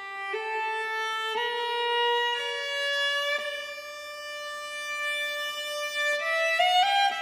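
Background music: a solo violin playing a slow melody of long held notes, moving in quicker rising steps near the end.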